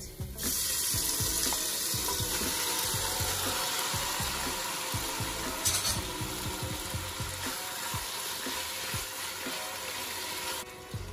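Marinated beef strips hitting hot oil with garlic in a pot: a loud sizzle starts suddenly about half a second in as the meat goes in, with a wooden spatula scraping and stirring through it. The sizzle stops abruptly near the end.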